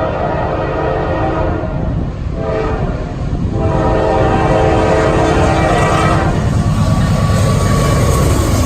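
Norfolk Southern freight locomotive's air horn sounding a long blast, a short one, then a long one, the closing part of the grade-crossing signal. As the last blast cuts off, the loud rumble and rail clatter of the train passing close by grows.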